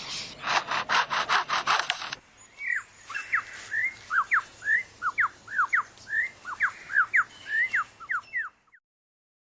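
Superb lyrebird mimicking a chainsaw with rapid rasping pulses, about six a second. About two seconds in it switches abruptly to a quick string of clear whistled notes that slide up and down.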